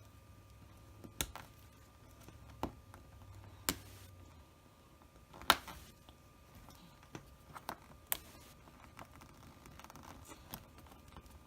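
Small plastic pieces of a Kinder Joy toy ball snapping together: a string of sharp, irregular clicks, the loudest about halfway through.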